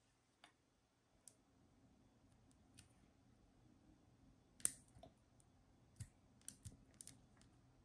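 Near silence broken by scattered faint clicks from a plastic squeeze bottle of hot sauce being handled and squeezed. The loudest click comes about halfway through, and several come close together near the end.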